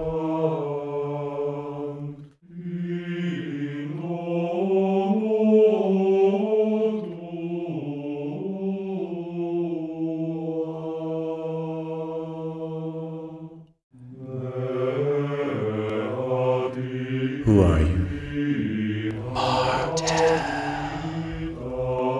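Chanted vocal music: low voices holding long, slowly shifting notes like a mantra drone, breaking off briefly twice. A falling whoosh with a low thump cuts through about seventeen seconds in, followed by a short noisy swish.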